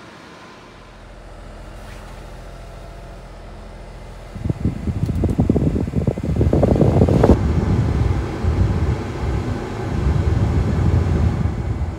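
Mini-truck cabin blower fan switched up, with air rushing from the dashboard vents and buffeting the microphone. The rush starts suddenly about four seconds in and falls away near the end, over the steady low hum of the idling engine.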